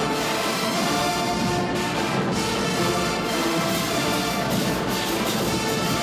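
Brass-heavy music playing steadily, with many instruments sounding together.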